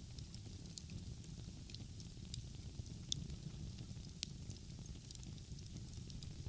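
Wood fire burning outdoors, crackling with frequent sharp pops, the loudest about three and four seconds in, over a steady low rumble.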